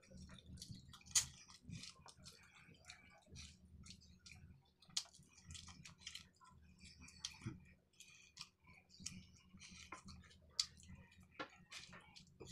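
Close-up chewing of rice and dried fish (tuyo) eaten by hand: wet mouth clicks and small crunches coming irregularly, with a few louder smacks.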